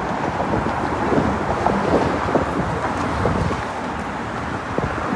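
Wind buffeting the microphone over a steady rumble of vehicle or traffic noise.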